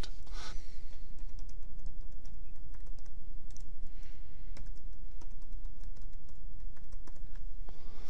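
Typing on a computer keyboard: a string of quick key clicks as a password is typed in and then typed again to confirm it, over a steady low hum.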